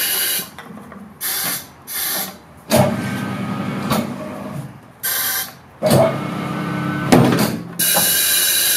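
ATH M72 tyre changer with its A34 pneumatic helper arm mounting a tyre on a steel rim: several short hisses of compressed air as the pneumatic controls are worked, and twice the turntable motor runs for about a second and a half, turning the wheel. A long hiss of air starts near the end.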